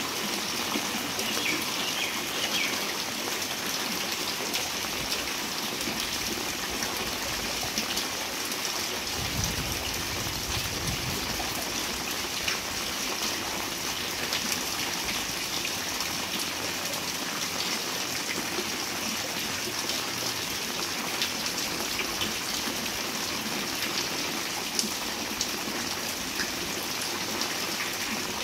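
Steady heavy rain falling into a flooded alley, splashing on standing water, with a brief low rumble near the middle.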